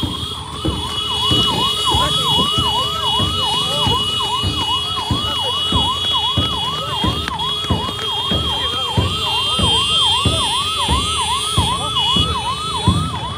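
Electronic siren wailing in a fast, repeating up-and-down sweep, about two and a half cycles a second, with a steady high whine above it and low thuds underneath.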